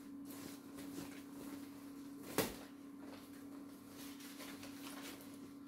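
Shopping bag being handled and opened, its material rustling, with one sharp click about two and a half seconds in.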